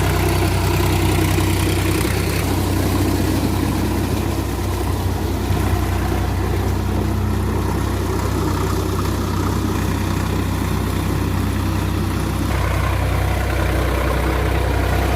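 Sonalika DI-47 RX tractor's diesel engine running steadily.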